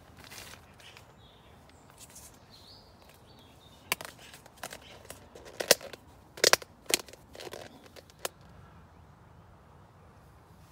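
Plastic crackling and snapping as a clear plastic food tub's lid and the plastic groundsheet are handled: a quick run of about nine sharp clicks over some four seconds, loudest near the middle.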